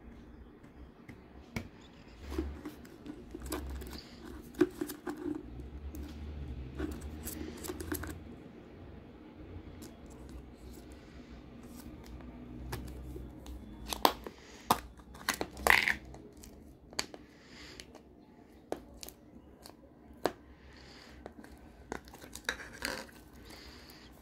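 Hands working the snap-on lid of a small clear plastic slime tub: scattered clicks and crinkles of the thin plastic, with the loudest snaps about 14 to 16 seconds in as the lid comes off. Near the end, a few softer crackles as the slime is pulled and squeezed.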